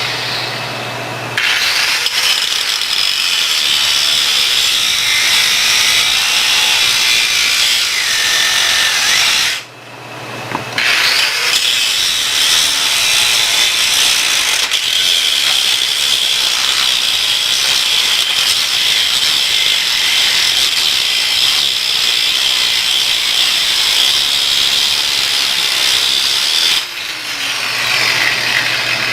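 Handheld power grinder running against steel, in two long runs with a brief stop between them.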